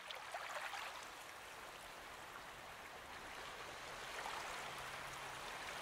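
Faint, steady wash of water, such as small waves on a shore.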